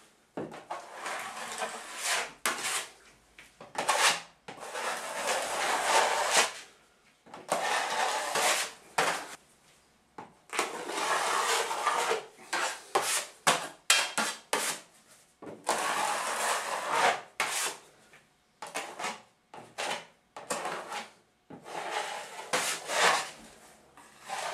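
A wide caulker blade scraping across a plasterboard ceiling, spreading and feathering drywall joint compound over freshly bedded crack-repair tape. It is a series of rasping strokes, each up to about two seconds long, with short clicks between them as the blade is lifted and set back down.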